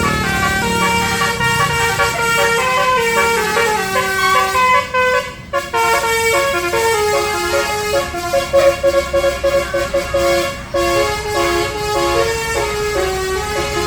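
Basuri bus horn, a multi-note musical horn, playing a melody of held notes that step up and down, with a short break midway and quick, choppy notes about two-thirds of the way through.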